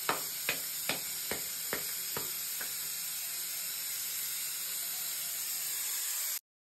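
Puri dough being slapped flat between the palms: seven sharp pats, about two to three a second, which stop a little under three seconds in. A steady hiss runs underneath, and the sound cuts off abruptly near the end.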